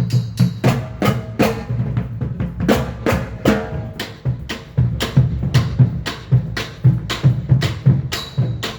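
Drums playing a steady beat, with bass drum and snare strikes, as part of loud music.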